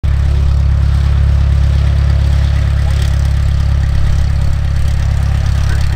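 Reims Cessna F172M Skyhawk's four-cylinder Lycoming O-320 engine and propeller running at low taxi power, a steady low drone as the plane taxis by.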